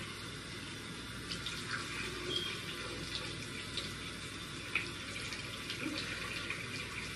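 Bathroom sink tap running steadily, with faint splashes and one small knock about five seconds in.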